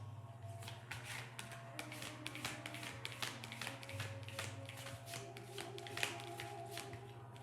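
Deck of chakra oracle cards being shuffled by hand: a run of quick, irregular card slaps and flicks, over soft background music with held notes.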